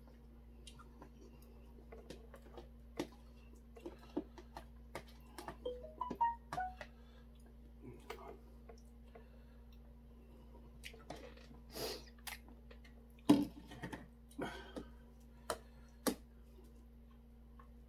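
Metal spoon scraping and clinking against a stainless steel bowl and a plastic container as rice is scooped into broth: scattered light clicks and knocks, with one louder clank past the middle. A steady low hum runs underneath.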